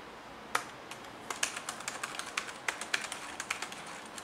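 Keys of an Alcatroz Xplorer Dock 2 compact wireless keyboard being typed on: one click about half a second in, then a run of quick, crisp key clicks from just over a second in.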